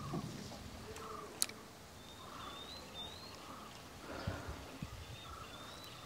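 Faint open-air ambience with a bird's thin, high whistled calls, and one sharp click about a second and a half in.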